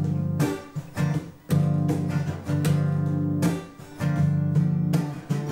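Acoustic guitar strumming chords with no singing, an instrumental stretch of a song.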